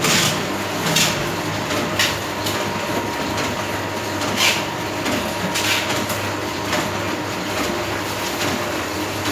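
A sticker-cutting machine running with a steady hum and a thin whine, broken by sharp clacks at uneven intervals as it works.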